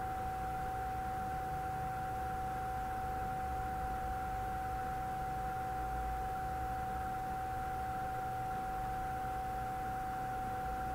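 Steady background noise: a constant high-pitched whine over hiss and a low hum, with nothing starting or stopping.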